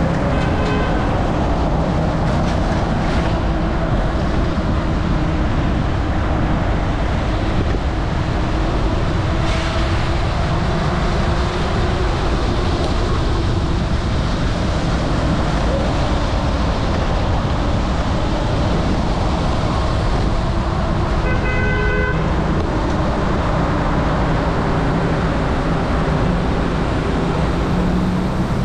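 Steady, dense road and traffic noise heard from a bicycle riding in the rain. A short car-horn toot sounds about a second in, and another about three-quarters of the way through.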